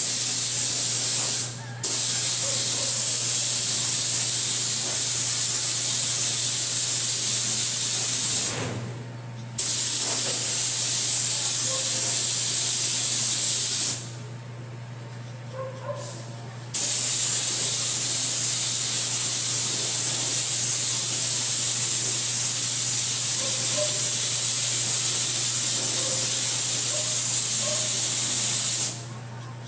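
Gravity-feed spray gun hissing as it sprays white paint, in long passes of several seconds broken by short pauses when the trigger is released, the longest pause about two seconds around the middle. A steady low hum runs underneath.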